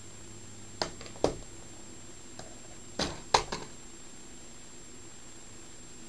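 Short clicks and taps of a metal Steelbook Blu-ray case being handled and opened: two light clicks about a second in, then a sharper pair around three seconds in.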